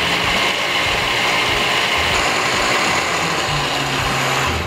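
Countertop blender running steadily, grinding rice with milk into a smooth rice cream.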